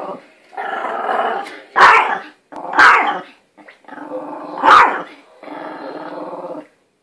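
Small dog barking sharply three times, with long growls between the barks: an excited, worked-up dog.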